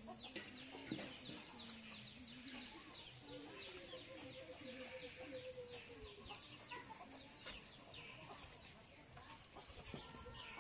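Chickens, faint: many quick, high, falling peeps over a lower, wavering drawn-out clucking call.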